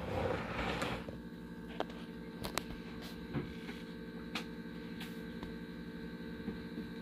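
A steady electrical hum with several held tones, a brief rustle in the first second, and a few faint clicks.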